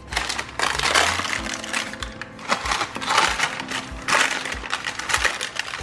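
Parchment paper crinkling and rustling in irregular bursts as it is gripped and pulled to lift a slab of bars out of its baking pan, over background music with a steady beat.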